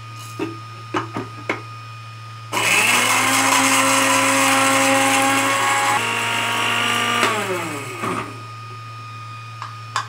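Electric blender's dry-grinder jar grinding whole garam masala spices: after a few clicks and knocks, the motor starts with a rising whine about two and a half seconds in. It runs loud and steady for about five seconds, then winds down with a falling pitch, and more clicks and knocks follow near the end.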